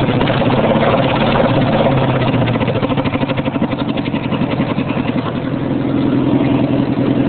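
Riding lawn mower engine running unmuffled through dual straight pipes, a loud, rapid exhaust pulsing; the level dips slightly about five seconds in, then picks up again.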